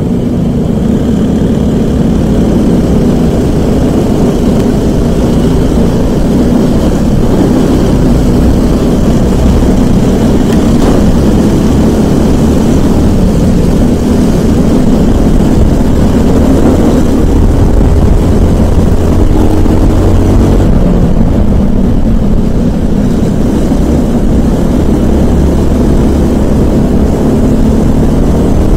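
Briggs & Stratton LO206 four-stroke single-cylinder kart engine at race speed, heard on board the kart, its pitch rising and falling as it revs through the corners.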